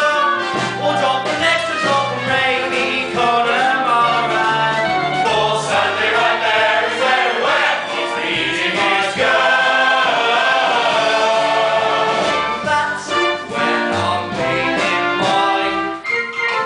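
A show tune sung by a chorus of voices, with an orchestra accompanying.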